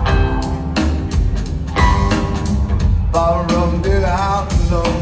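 A rock band playing live: a drum-kit beat over strong bass. About three seconds in, a wavering, bending melodic line comes in.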